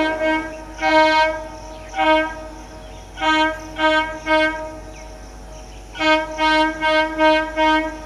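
Horn of an Indian Railways EMU electric train, sounded in repeated toots as a warning to monkeys on the track. One longer blast comes about a second in and a short one at two seconds, then a quick run of four toots and, near the end, a quick run of five.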